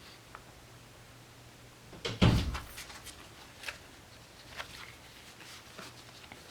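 A single thump about two seconds in, like something set down or closed on a desk, followed by a few faint taps and rustles of paper being handled.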